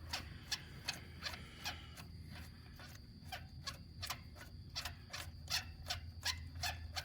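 Ratchet clicking in short, irregular single clicks, a couple to a few a second, as a spark plug is backed out of the cylinder head.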